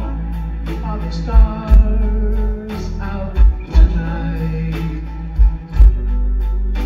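Live doo-wop vocal group singing in harmony with a backing band of keyboards and drums. Heavy low drum thumps come in pairs about every two seconds.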